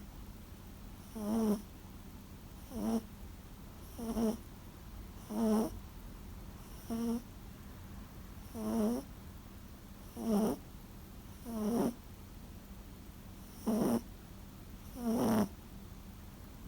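Toy poodle snoring in her sleep: about ten short, pitched snores, one every second and a half or so, each on the in-breath of slow sleeping breaths. A snore like an old man's.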